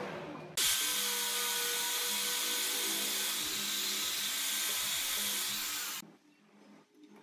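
Angle grinder with a sanding disc, running and sanding a glued-in wooden plug flush on a wooden clock frame. It starts abruptly about half a second in and cuts off suddenly about a second before the end.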